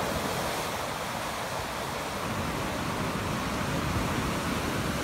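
Sea surf breaking and washing up the sand around the pier's pilings, a steady rushing.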